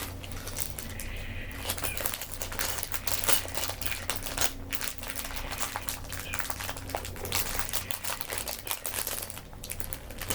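Plastic packaging of a Lego set crinkling in a dense, continuous run of small crackles as it is handled and pulled open.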